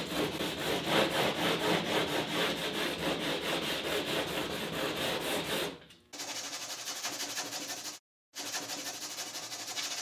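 Hand sanding of cured epoxy drips off the fiberglassed edge of a marine plywood panel, the abrasive rubbing back and forth in quick, even strokes. It stops abruptly about six seconds in and comes back lighter and scratchier, with a brief break near eight seconds.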